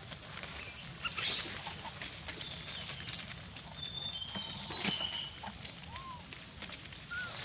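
Short high-pitched animal chirps and whistles, a cluster of them in the middle with the loudest about four seconds in, over a steady outdoor background hiss.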